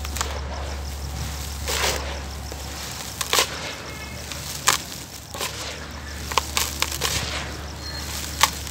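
Lumps of dry, dusty dirt crushed and crumbled by hand, giving a string of sharp gritty crunches over a steady sifting hiss as the loose grit pours back into the pile.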